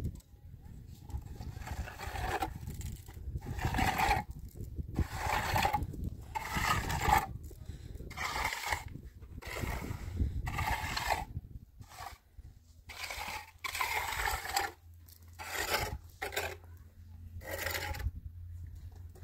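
Steel trowel scraping wet cement plaster onto a cinder-block wall, a long run of short irregular strokes about one a second.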